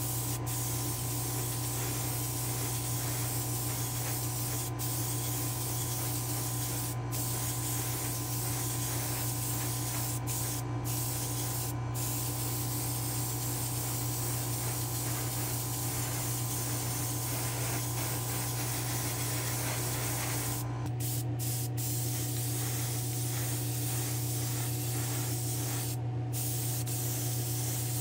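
Gravity-feed airbrush spraying 2K urethane clear coat, a steady hiss that breaks off briefly a few times, over a steady low hum.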